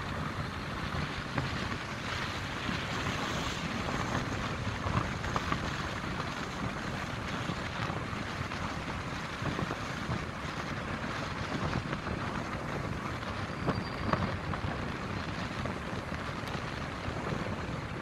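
Steady rush of wind in a snowstorm, with a couple of brief sharper sounds about five seconds in and again near fourteen seconds.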